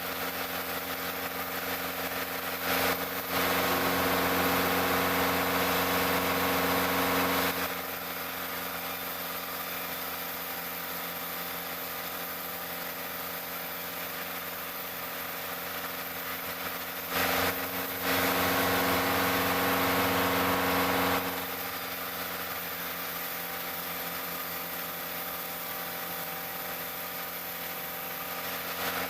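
Sawmill machinery running with a steady engine-like hum. Twice it grows louder and noisier for about four to five seconds, as the saw cuts through a teak log.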